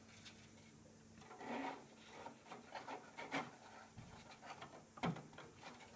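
Nylon model-aircraft parts rubbing and clicking as the top wing is handled and pressed onto its snap-lock mounts, with a sharper click about five seconds in.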